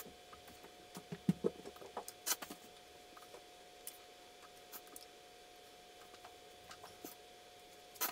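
Fingertips tapping and handling smartwatches on a table: a scatter of small clicks and taps, busiest between one and two and a half seconds in, with another sharp click near the end.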